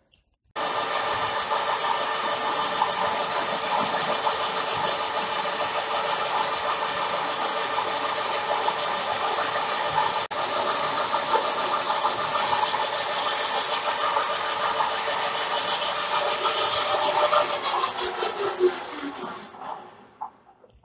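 Metal lathe running while a twist drill held in the tailstock cuts into a spinning metal blank: a steady machine whir with a few even tones over the cutting noise. Near the end the sound fades and falls in pitch as the spindle winds down.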